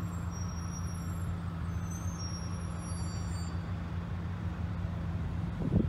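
Steady low engine drone, like a diesel idling, under a haze of traffic noise. Near the end, wind buffets the microphone.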